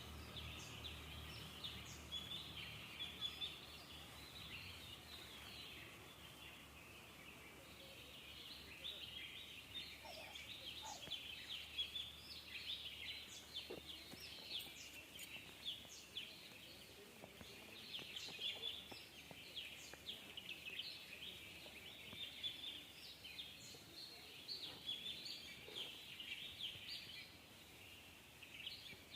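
A chorus of many small birds chirping together: a continuous, busy overlap of short, high calls, faint overall.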